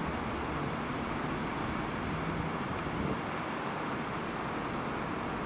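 Steady rumbling background noise with no distinct events, with a faint low hum for about a second midway.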